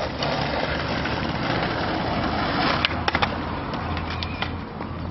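Wheels rolling over concrete with a rough hiss, and a quick cluster of sharp clacks about three seconds in, as from a skateboard hitting the ground.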